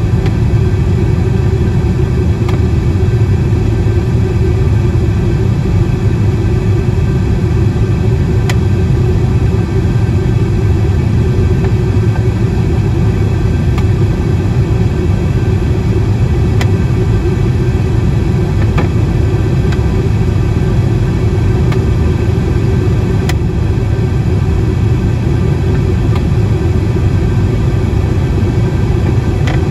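Steady roar of an airliner's engines and rushing air, heard from inside the passenger cabin during the climb after takeoff, with a few faint ticks.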